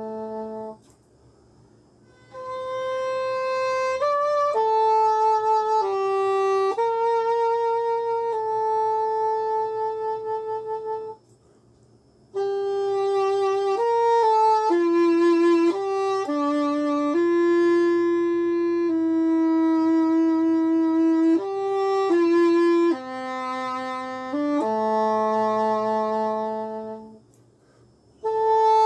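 Solo English horn playing a slow melody of long held notes, in phrases broken by brief pauses about a second in, near the middle and near the end.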